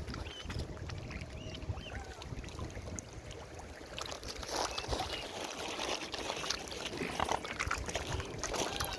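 Water splashing and sloshing as birds feed on a pond, with many short high chirping calls. A low rumble of wind runs underneath.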